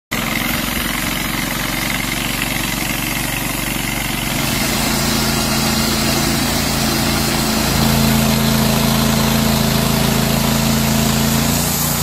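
Rhino 700 series portable band sawmill running and cutting through a log: a steady motor drone with a hiss of the blade in the wood, slightly louder from about eight seconds in.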